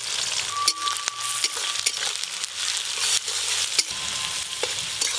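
Sliced onions sizzling in hot mustard oil in a metal kadai, with a flat metal spatula scraping and clicking against the pan as they are stirred.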